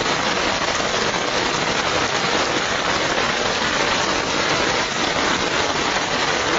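Heavy rain falling steadily onto a flooded street, an even, unbroken hiss of rain on water.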